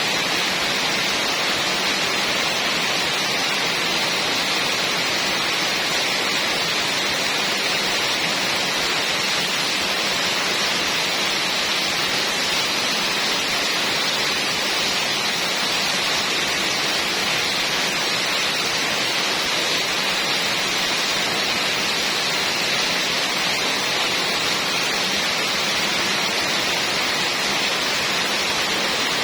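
Heavy rain falling steadily, a constant even hiss with no letting up.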